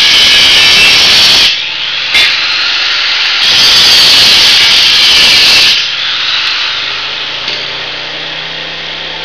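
A 4.5-inch electric angle grinder cutting into steel, biting hard twice with a lighter stretch between, then released and winding down about six seconds in. Under it, and left running alone afterwards, is the small generator running on wood gas, carrying the grinder's 600-watt load.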